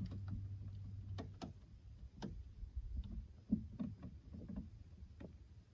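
Small boat on calm water: a low steady hum that cuts off about a second in, then scattered light clicks and soft knocks from gear being handled aboard, including a spinning reel being worked.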